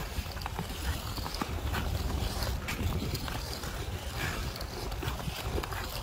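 Ice skate blades scraping and gliding over rough outdoor ice in repeated strokes, with wind rumbling on the microphone.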